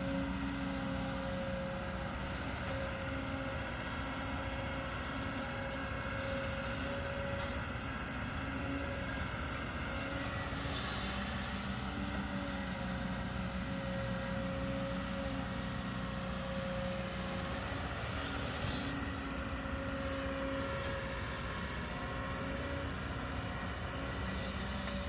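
Kobelco hydraulic excavator's diesel engine running steadily at working speed, with two brief rushes of hiss partway through.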